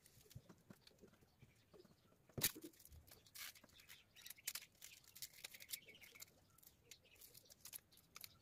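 Faint, scattered clicks and crackling of a thin plastic trim strip and its backing being handled, with one sharper click about two and a half seconds in.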